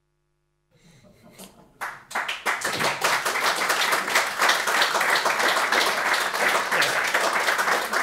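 Audience applauding: it starts faintly about a second in and becomes steady, dense clapping from about two seconds in.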